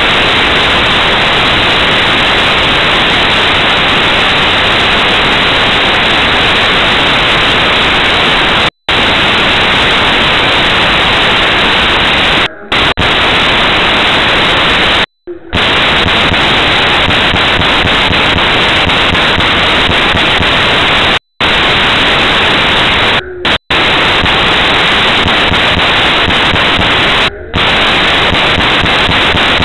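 Loud, steady static hiss with no tune or rhythm in it, which drowns out everything else and cuts out abruptly for a split second about seven times.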